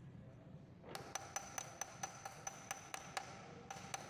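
Quick, light hammer taps of a steel bar on a nut welded onto a broken bolt in a car cylinder block, about four to five ringing metallic strikes a second, starting about a second in with a short pause near the end.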